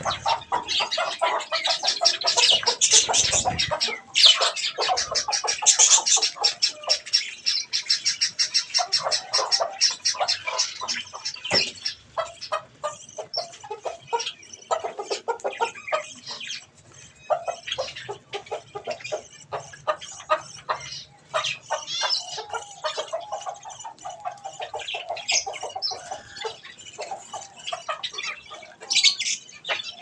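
A flock of budgerigars chattering and chirping nonstop in a dense, high warble. The chatter is busiest in the first half and thins out after that, with some lower calls mixed in now and then.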